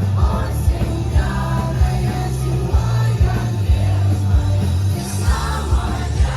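Live pop-rock concert music heard from the crowd: a band with a heavy, dense bass and a singer's voice over it, playing continuously.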